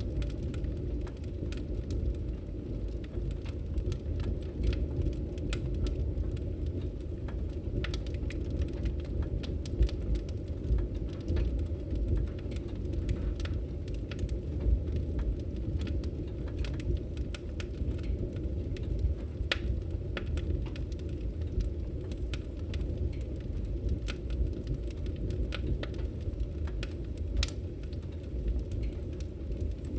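Fire burning: a steady low roar of flames with scattered sharp crackles and pops throughout.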